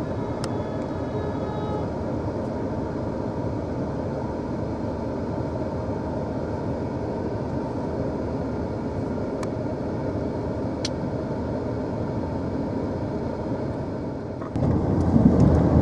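Steady rumble of a vehicle idling at a standstill, heard from inside the cabin. About fourteen and a half seconds in, it turns abruptly louder, with more low rumble.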